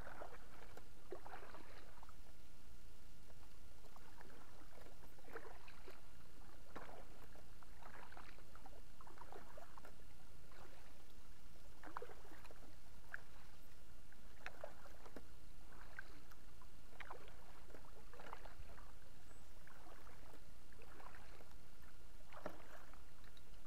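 Double-bladed kayak paddle dipping into calm water, a short splash and drip on each stroke at about one stroke a second, over a steady low hum.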